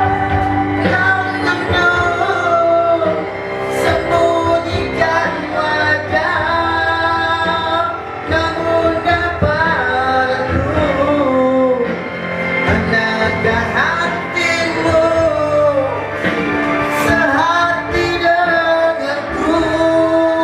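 Music with a singing voice over instrumental accompaniment, the melody gliding up and down without pause.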